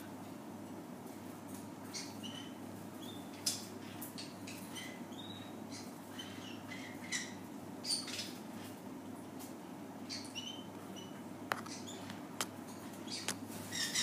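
A conure making soft, short chirps and squeaks at scattered moments while its head is scratched, with a few faint clicks and a louder chirp near the end.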